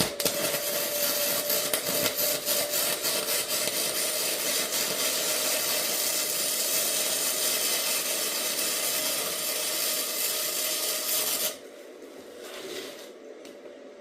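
Band sawmill blade cutting through a log: a loud, steady rasping noise with a held tone under it. It starts abruptly and stops suddenly about eleven and a half seconds in.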